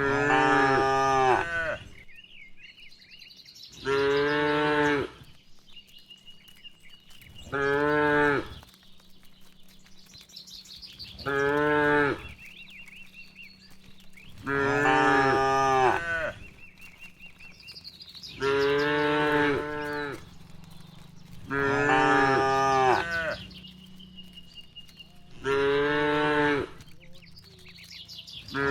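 Cattle mooing: eight loud, drawn-out moos of about a second each, coming at an even pace about every three and a half seconds, with faint high chirps in the gaps between them.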